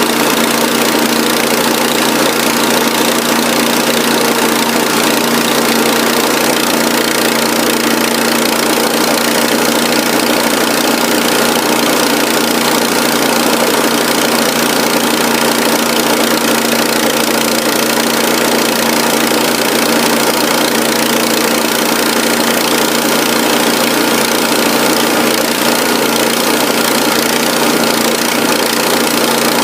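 Engine of a remote-controlled lawn mower running steadily at a constant speed, with an even, unchanging pitch.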